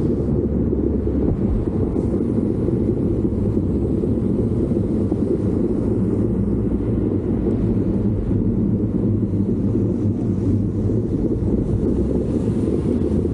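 Steady low rumble of wind buffeting the microphone, over the even drone of an engine, as when riding in or on a moving vehicle.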